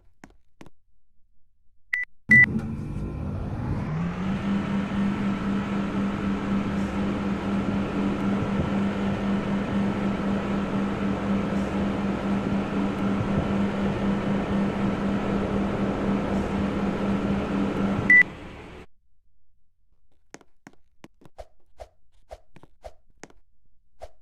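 Air conditioner switched on with a beep: its fan spins up over a couple of seconds and runs with a steady hum. About sixteen seconds later it is switched off with another beep and quickly runs down.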